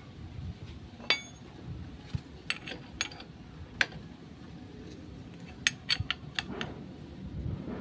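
Steel hand tools clinking against a Suzuki Shogun SP125's clutch hub and centre nut: an open-end spanner wedged against the hub and a socket tool set on the nut. Scattered sharp metallic clinks, with a quick run of them about six seconds in.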